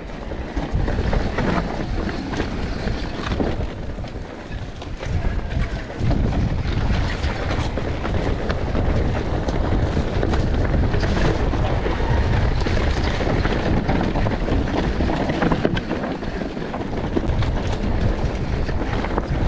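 Enduro motorcycle being ridden off-road, its engine running under heavy wind noise on the microphone, with a few sharp knocks about halfway through and again later.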